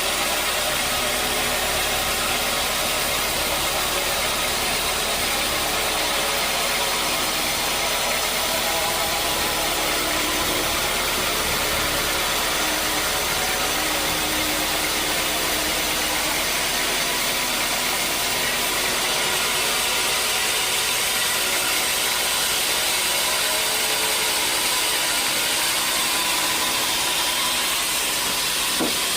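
Sawmill machinery running steadily: a continuous mechanical drone with many steady tones and a strong high hiss, holding an even level throughout.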